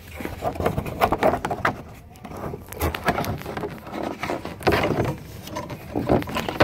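Club Car Precedent's plastic body shell being worked down into place over the bumper: irregular scraping, rubbing and knocking of the panel, with a few sharper knocks near the end.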